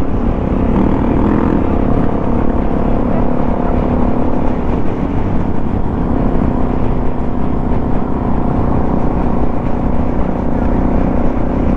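Suzuki DR-Z400 supermoto's single-cylinder four-stroke engine running at a steady cruise, with wind rumbling on the microphone.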